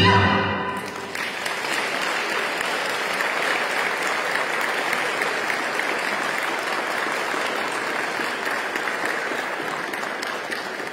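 Audience applauding steadily after the final notes of plucked-string folk music, which stop about a second in; the clapping fades near the end.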